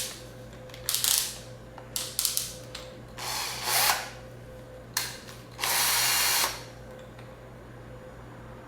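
Makita DF330D 10.8 V cordless drill/driver run in a series of short bursts on the trigger, ending with one steady run of about a second.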